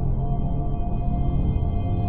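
Eerie ambient music: a sustained low drone with ringing, gong-like tones held over it.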